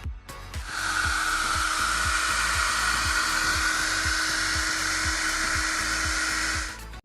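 Electronic buzzer of a touchless doorbell prototype sounding one steady, high buzz that starts under a second in and cuts off near the end, triggered when the IR sensor detects a hand. Background music with a steady beat plays underneath.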